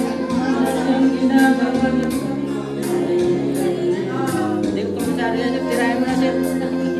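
Karaoke: a man singing into a microphone over a recorded backing track with a steady beat.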